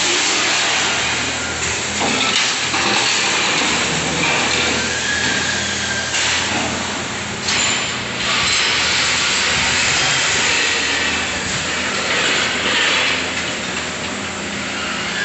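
Factory machinery running: a loud, dense mechanical noise full of hiss, over a steady low hum, swelling and easing without a break.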